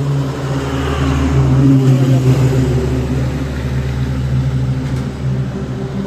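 Engine running steadily, loud and close, with a constant low hum and a rough noise over it.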